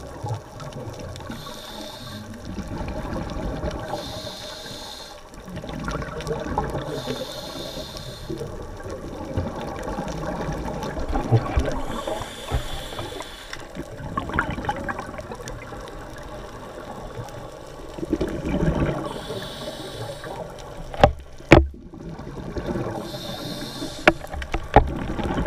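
Scuba regulator breathing heard underwater: a hiss with each inhale, coming every few seconds, over the bubbling and low rumble of exhaled air. Two sharp knocks about three quarters of the way through.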